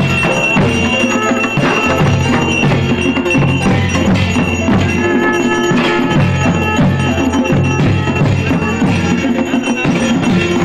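Traditional percussion music: a steady drumbeat with ringing, bell-like tones held over it.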